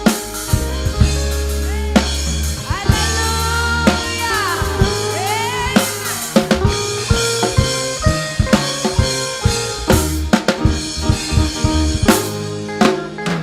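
Live praise band playing an upbeat number: drum kit hitting snare and bass drum steadily over long deep bass notes. From about two seconds in, a high melodic line bends up and down in pitch for a few seconds.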